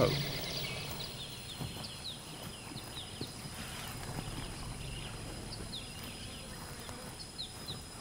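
Rainforest clearing ambience: a steady high insect whine and a low rumble, with many short, high, falling chirps scattered throughout.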